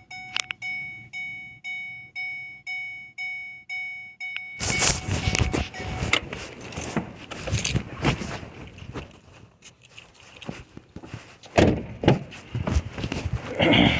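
A repeated electronic chime on one pitch, about two a second, each one dying away, which cuts off after about four and a half seconds. Then irregular clatter of handling follows, with clicks, rattles and knocks, loudest near the end.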